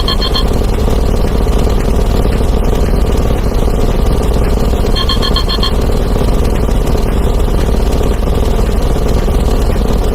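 A dense, steady roar of many sound effects stacked on top of one another: explosions, breaking glass and a synthetic 'plus one' voice blurred into one continuous rumble. A phone ringtone trills briefly at the very start and again about five seconds in.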